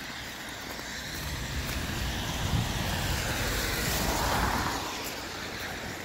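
A car passing on the wet, slushy road: tyre hiss swelling to a peak about four seconds in, then fading, over a low rumble.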